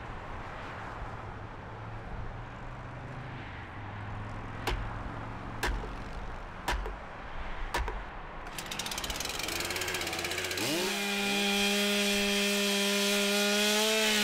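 Four sharp knocks about a second apart. Then a petrol chainsaw starts up, its engine pitch climbing quickly before it settles into a loud, steady high-speed run.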